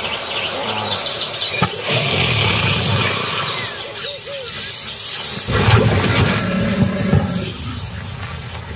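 Birds chirping over a steady, noisy natural background, with a louder low rumble about two-thirds of the way through.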